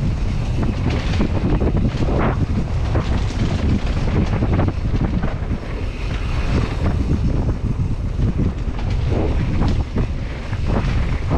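Wind buffeting a helmet or handlebar action camera's microphone during a downhill mountain-bike run, a heavy steady rumble with many short knocks and rattles from the bike and tyres going over the trail.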